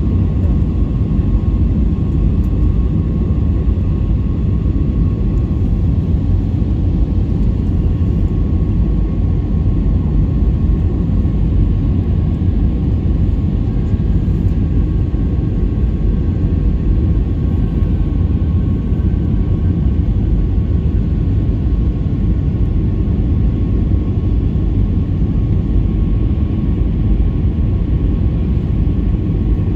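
Jet airliner cabin noise on final approach: a steady low rumble of engines and airflow heard through the fuselage, with a faint steady whine above it.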